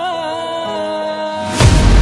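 Background score with held, slightly wavering melodic notes, broken about one and a half seconds in by a sudden loud boom. A heavy low rumble carries on after the hit.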